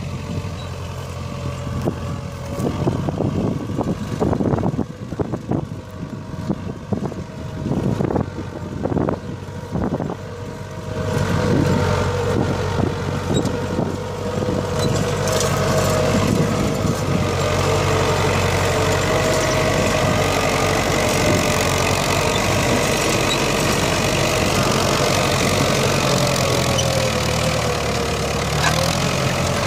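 İşbora tractor's diesel engine running under load as it pulls an Aydın mouldboard plough through hard, dry ground. For about the first ten seconds irregular knocks sound over a quieter engine. From about eleven seconds in, the engine is louder and steady.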